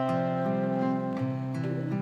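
Background music: gentle acoustic guitar playing picked notes.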